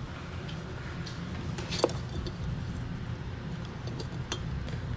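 Steady low background hum with a few light clicks and knocks of handling. The sharpest click, with a brief squeak, comes just under two seconds in.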